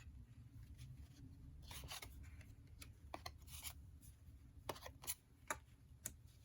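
Faint rustling and scattered light clicks of small cardstock cards being handled and set down one after another.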